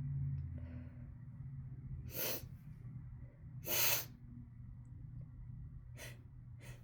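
A person's sharp sniffs and breaths through the nose, four short bursts, the loudest about four seconds in: the tickle building in a sneezing fit set off by chhinkni, a sneezing herb.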